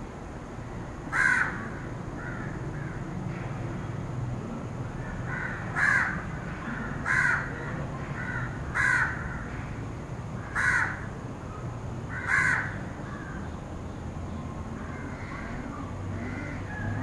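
Crows cawing: six loud, harsh caws spaced one to two seconds apart, with fainter calls in between, over a faint low rumble.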